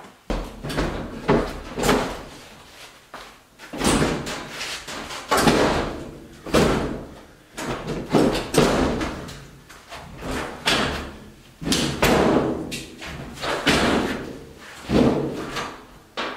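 Washing machine being shoved and shifted across a floor: a run of heavy thuds and scrapes, roughly one a second.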